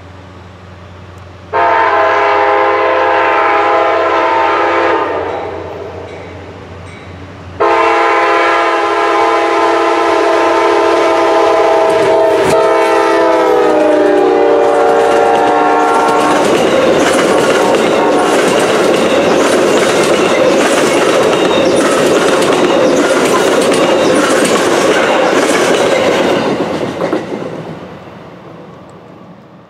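Amtrak passenger train passing close by at speed. The locomotive's multi-tone air horn sounds a blast of a few seconds, then a longer one whose pitch drops as the engine goes past. The passenger cars follow with a rushing roll and a rhythmic clickety-clack of wheels over the rail joints, fading away near the end.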